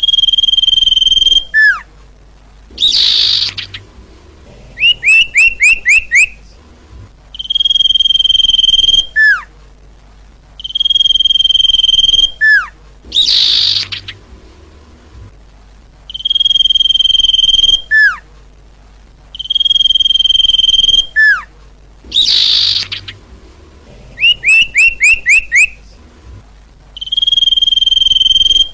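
Recorded song of the bird called sirtu in Indonesian, played as a lure call. It is a long steady whistle, short sharp down-slurred notes, a harsh rasp, then a quick run of about five falling notes. The same phrase repeats about every nine and a half seconds, loud and exactly alike each time, like a looped recording.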